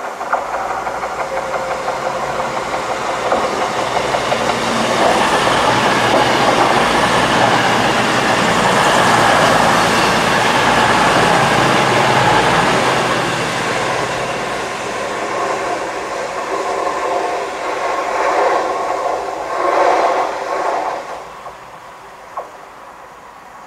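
CrossCountry Voyager diesel multiple unit passing along the platform: its underfloor diesel engines and its wheels on the rails grow louder, are loudest through the middle as the coaches go by, then fade. There are two brief swells near the end before the sound drops away, and a single sharp click just after.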